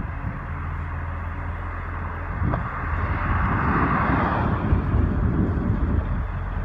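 Garbage truck's diesel engine running with a steady low hum as it drives off. A car passes close by between about three and four and a half seconds in, and its tyre noise swells and fades.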